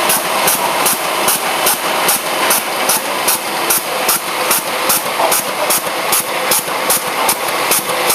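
Automatic labelling machine and jar conveyor running, applying tamper-evident labels to jam jars: a steady mechanical whir with fast, regular clicking about four times a second.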